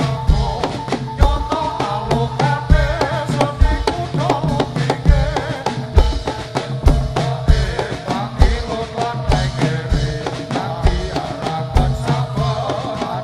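Javanese jaran kepang dance music: a drum-led ensemble with a steady beat of deep drum strokes, sustained tones and a wavering melody line above them.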